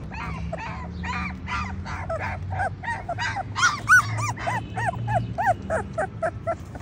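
German shorthaired pointer puppies whimpering and yelping: a rapid run of short cries, each rising and falling in pitch, several a second, loudest around the middle.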